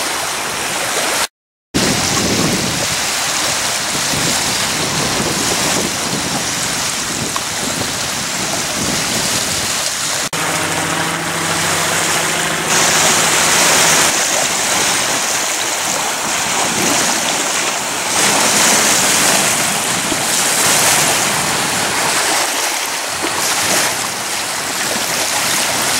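Steady wash of small lake waves lapping along the shore. The sound cuts out completely for a moment about a second and a half in.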